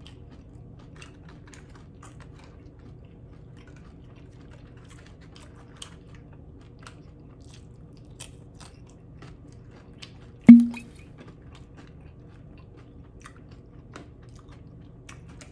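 Close-miked chewing and crunching of loaded steak nachos, with faint scattered mouth clicks. One sharp, loud knock about two-thirds of the way through.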